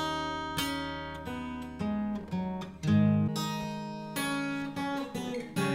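Acoustic guitar played fingerstyle: single plucked notes ring out one after another over an E7 chord, about two a second. A fuller, louder chord is struck about three seconds in.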